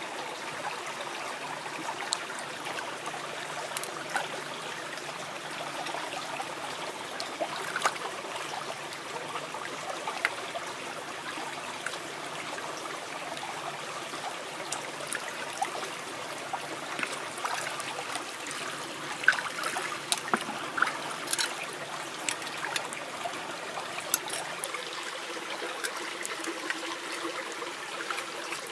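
Shallow stream trickling over stones, with scattered light clicks and knocks of oyster shells being handled in the water; the clicks come thickest and sharpest about two-thirds of the way through.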